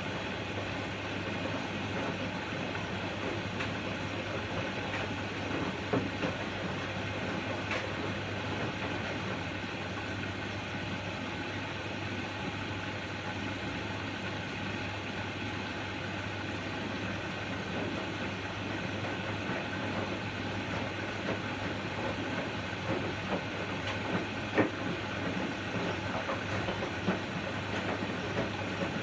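Washing machine running: a steady mechanical rumble with a low hum and a few short clicks or knocks, the sharpest about six seconds in and near twenty-four seconds.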